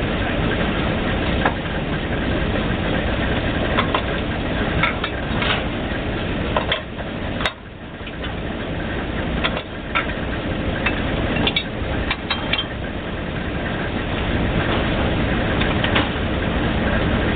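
Failling 1250 drilling rig running: steady engine noise with scattered short clicks and knocks. The sound drops briefly about seven and a half seconds in at a sharp click, then builds back up.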